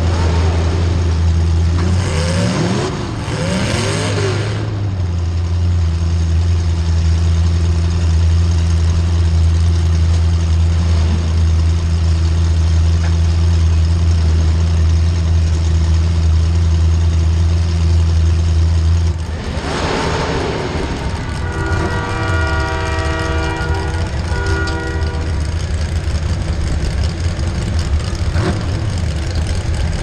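A demolition derby car's engine idling steadily, heard from inside the stripped cabin; about two-thirds through, a burst of noise comes and the deep engine note drops away. A few seconds later a horn blows steadily for about three seconds.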